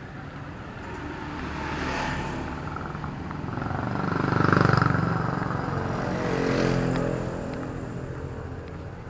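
Motor scooter engine passing close by, rising to its loudest about halfway through and falling in pitch as it goes past; a second engine passes near the end.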